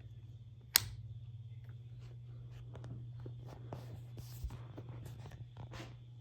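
NuTone Hacienda ceiling fan running with a steady low motor hum, a sharp click a little under a second in and scattered faint ticks.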